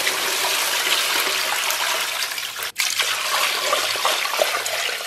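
Water poured in a steady stream from a stainless steel bowl into a large stockpot of braising liquid, splashing as it lands; the sound cuts out for an instant a little under three seconds in.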